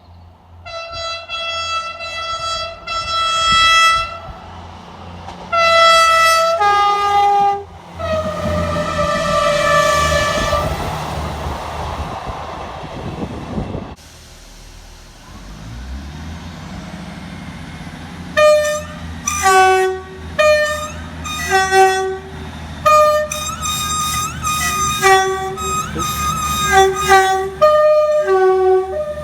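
Train horns sounding. First come two steady blasts on one note, then a high–low two-tone, then a long slightly falling note over passing train noise. After a lull, a passing train's two-tone horn plays a fast tune of short notes, alternating high and low.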